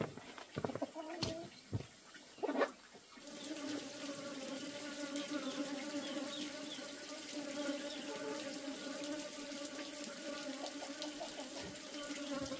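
A few knocks and clicks, then about three seconds in the steady buzzing drone of many honeybees starts and continues.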